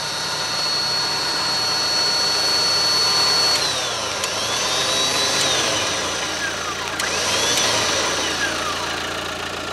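Grizzly 8500 lb electric winch motor whining as it spools in the line. The high whine holds steady for about three and a half seconds, then drops away and twice rises and falls again as the winch is stopped and restarted in short runs.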